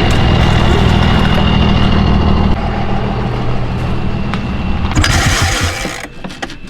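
Snowmobile engine running steadily, falling quieter near the end.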